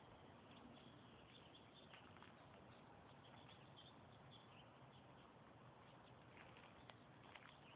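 Near silence: faint outdoor background hiss with scattered soft ticks, which come more often near the end.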